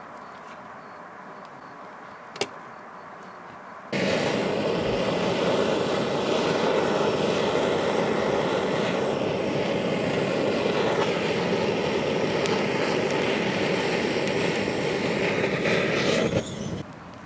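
Handheld gas torch on a gas canister firing: a loud, steady rushing hiss that starts about four seconds in and cuts off suddenly near the end. A single sharp click comes shortly before it.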